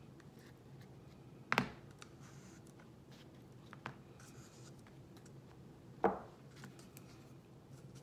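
Small plastic spatula scraping thick chalk paste out of a jar and stirring it in a plastic cup, with faint scratching and two sharp taps, one about a second and a half in and one about six seconds in.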